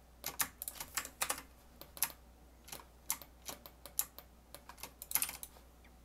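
Computer keyboard keys tapped in short irregular runs, with a quick flurry of taps about five seconds in.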